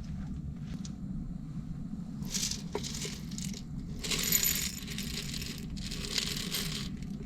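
Light metallic clinking and jingling in three short bursts over a steady low background rumble.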